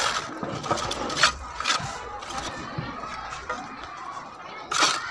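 Steel bricklaying trowel knocking and scraping on clay bricks and cement mortar as a brick is set in the course: a few sharp knocks, the loudest near the end.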